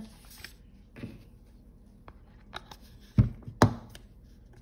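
Light knocks and taps of a paint cup being handled and set down on a table, with two louder thumps about three seconds in.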